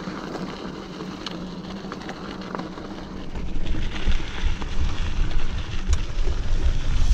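Mountain bike rolling over a rocky trail: tyres crunching on gravel and stones and the bike rattling, with wind buffeting the camera microphone. About three seconds in it becomes much louder and rougher.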